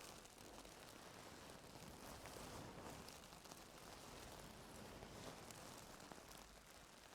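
Faint, soft scratching and rustling of ear-cleaning tools working in an ear canal, with tiny scattered clicks.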